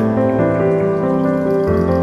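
Soft background music of sustained, slowly changing chords.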